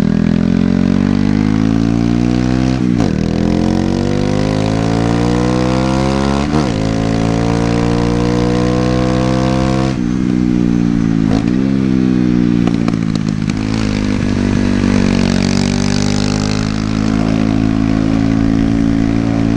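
Honda CBR125's single-cylinder four-stroke engine accelerating hard through the gears, its pitch climbing and then dropping sharply at each of several upshifts, before settling into a steady cruise.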